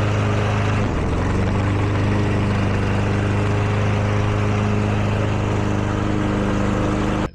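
Gasoline lawn mower engine running steadily at full throttle, its note wavering briefly about a second in as if loaded by what is fed into it. The sound cuts off abruptly near the end.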